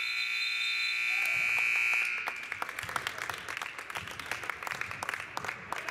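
Gym scoreboard buzzer sounding a steady electronic tone that cuts off about two seconds in, marking the end of the half as the game clock hits zero; then scattered clapping.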